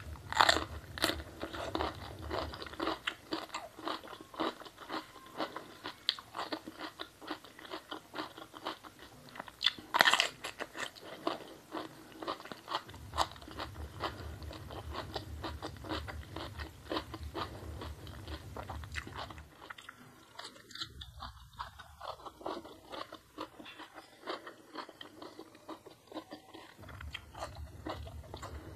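Close-miked chewing and crunching of food from a meal of salted fish, young jengkol and raw vegetables, a rapid run of crisp bites. The loudest crunches come about half a second in and about ten seconds in; the chewing is quieter in the last third.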